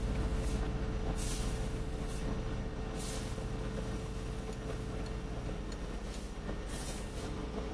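Steady low drone of a cargo ship's running machinery with a constant hum, and a few short hisses over it.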